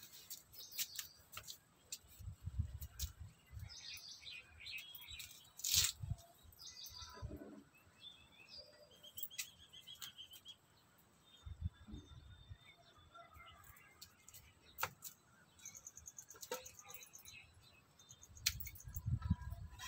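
Small birds chirping in short, scattered calls, with rustling and sharp clicks of leaves and stems being handled as eggplants are picked, and a few low, muffled thumps.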